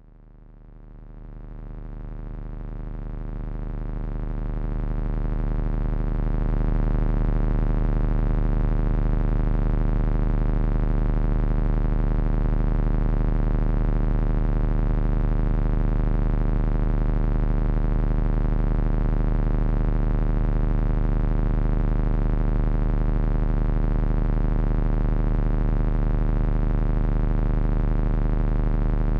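Heavy electronic drone noise from three Frequency Analyzer v1 units driven by an HP 200C audio oscillator. A dense, unchanging stack of tones with a strong low hum fades in from silence over the first several seconds, then holds steady.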